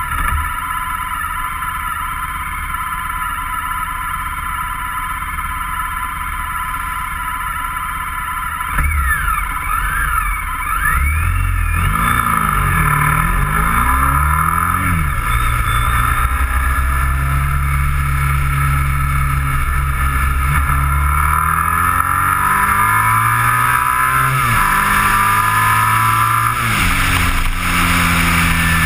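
A vehicle engine idling steadily, then pulling away about a third of the way in and accelerating through several gears, its pitch climbing and dropping back at each shift. Wind rumbles on the mounted camera's microphone once it is moving.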